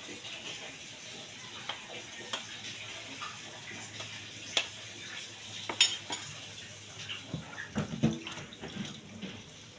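A utensil clinking and scraping against a frying pan while stirring food, a few sharp clinks spread out, the loudest a little before the middle.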